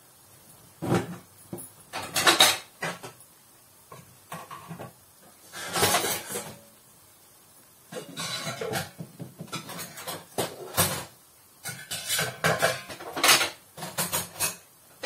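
Kitchen clatter: utensils and cookware knocking and scraping in irregular bursts while paratha dough is handled.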